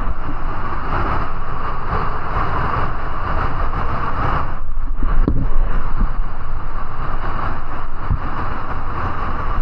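Loud, steady rushing of a waterfall, with irregular low rumbling of wind buffeting the microphone; the rushing briefly dulls about five seconds in.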